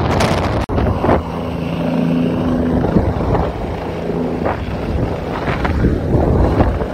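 Helicopter in flight heard from an open doorway: engine and rotor noise buried under heavy wind buffeting on the phone's microphone. A steady low hum stands out for a second or two early on.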